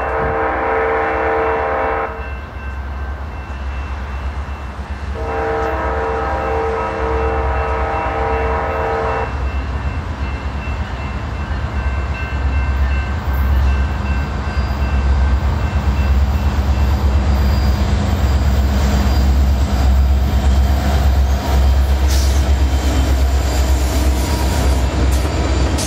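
Diesel locomotive air horn sounding a chord, one blast ending about two seconds in and a second longer blast from about five to nine seconds. After it, the low rumble of the Union Pacific lead locomotives' diesel engines grows louder as the double-stack container train comes up and passes.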